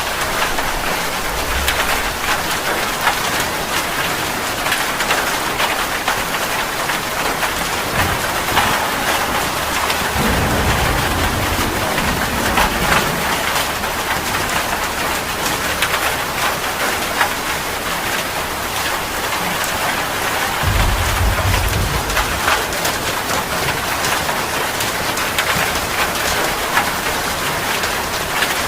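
Heavy rain falling steadily, a dense patter of drops. Low rumbles of thunder come in twice, about ten seconds in and more strongly about twenty-one seconds in.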